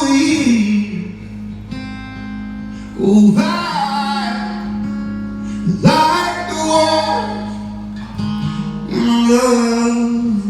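Live band performance of a song: singing over acoustic guitar, with sung lines starting about every three seconds over held chords.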